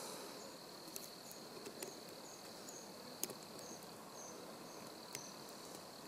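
Lock pick and tension wrench working the pin stack of a brass FTH Thirard Land 75 padlock: faint, with four or five sharp metallic ticks spread a second or so apart. Behind it runs a steady high insect-like chirping, a few chirps a second.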